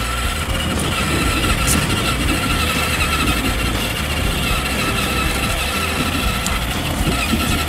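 Battery-powered 12-volt Kawasaki ride-on quad driving across grass, its electric drive motors and gearboxes giving a steady high whine.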